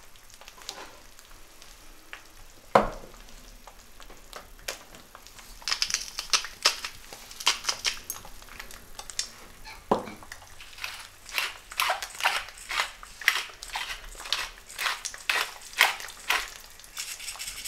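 Eggs frying in oil in a pan with a quiet, steady sizzle. From about six seconds in, salt and pepper grinders are twisted over the pan, making quick runs of gritty crunching clicks. Two single knocks come about three and ten seconds in.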